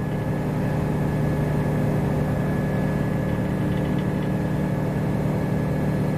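Truck lift gate's hydraulic pump motor running steadily as it raises the platform. It makes a constant hum with a thin high whine above it.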